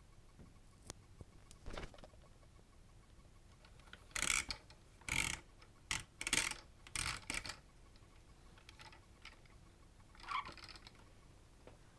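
A plastic toy tow truck's crane arm being handled inside its box: a run of about six short plastic clicks and scrapes over a few seconds, then one more a few seconds later.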